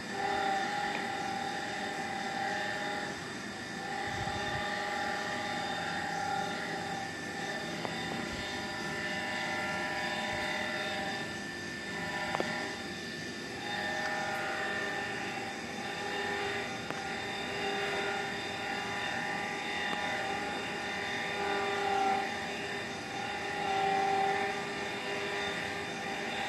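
A steady machine drone of a few held tones over background noise. It fades briefly a couple of times and returns.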